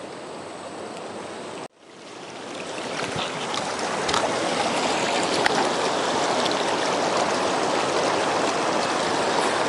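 Fast river rapids rushing steadily. The sound cuts out abruptly almost two seconds in, then swells back up over the next few seconds and runs on, a little louder.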